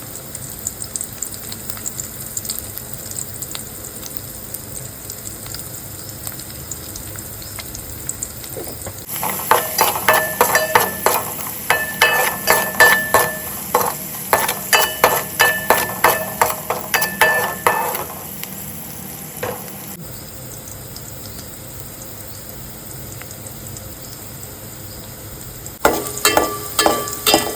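Food sizzling steadily as it fries in a pan. Twice a metal utensil stirs it, clinking and scraping against the pan with a ringing tone: a long spell of stirring about a third of the way in and a shorter one near the end.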